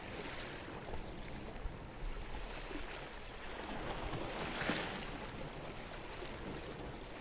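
Sea water washing and lapping, with one louder swash about four and a half seconds in.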